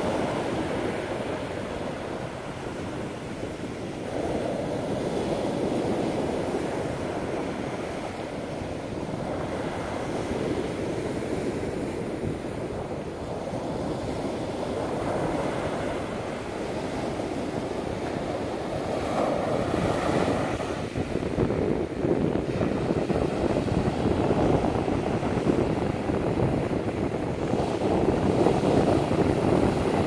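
Ocean surf breaking and washing up the beach, a continuous rush that swells and eases with each wave. Wind buffets the microphone, more roughly in the later part.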